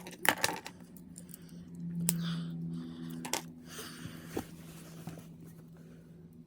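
Small plastic clicks and rattles from handling the parts of a snap-together plastic figure kit, a few sharp clicks near the start and again around the middle, with breathy noise in between and a low steady hum underneath.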